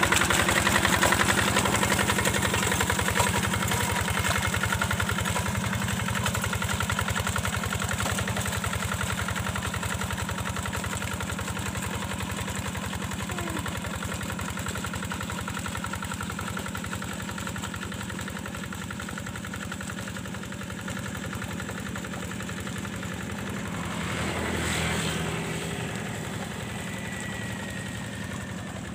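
Single-cylinder diesel engine of a two-wheel hand tractor running steadily under load as it drags a levelling plank through paddy mud, with an even chugging firing rhythm. It grows steadily fainter as the tractor moves away, with a brief swell near the end.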